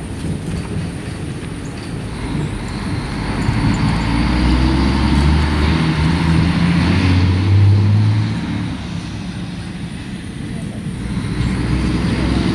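A motor vehicle passing by, a low rumble with road noise that builds to its loudest about seven or eight seconds in and then fades, before another rises near the end.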